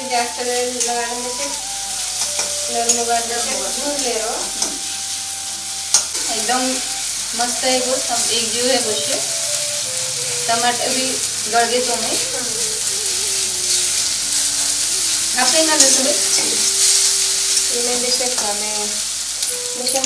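Onion-tomato masala sizzling in hot oil in a black iron kadhai, stirred with a steel spatula that scrapes and taps against the pan many times over.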